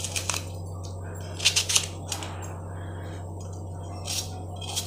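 Knife cutting an onion held in the hand, with a handful of short, sharp clicks as the cuts go through and pieces drop into a metal pot. A steady low hum runs underneath.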